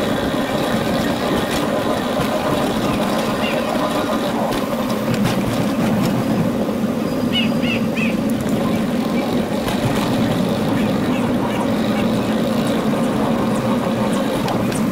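A small motor running steadily as the vehicle rides along, an even hum throughout, with a few short bird chirps, mostly around the middle.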